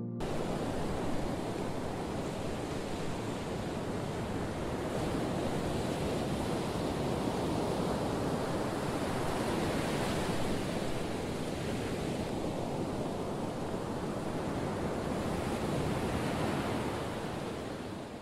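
Ocean surf washing on a shore: a steady hiss that swells gently now and then and fades out at the end.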